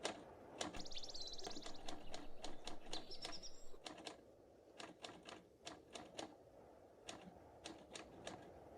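Manual typewriter keys striking in an irregular run of sharp clicks, quicker and louder in the first few seconds and then sparser.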